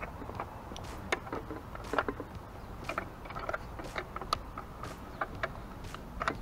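Irregular light clicks and small knocks, about two a second, as a metal headlight bracket is handled and fitted against a motorcycle's front fork tube, over a steady low rumble.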